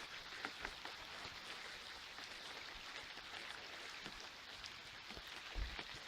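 Light rain falling: a faint, steady patter of many small drops.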